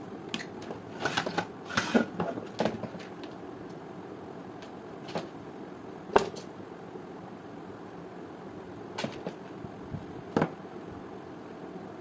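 Scattered sharp clicks and knocks, several close together in the first few seconds and single ones later, over a steady low hiss.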